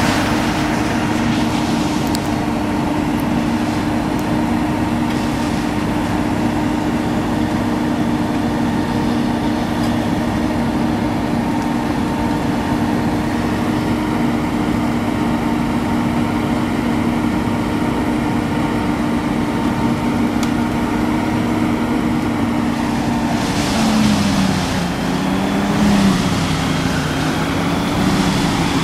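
Truck-mounted wood chipper running steadily, with a constant engine tone. Near the end the pitch sags and wavers a few times and a coarser rush of noise rises as it takes on a load of trees.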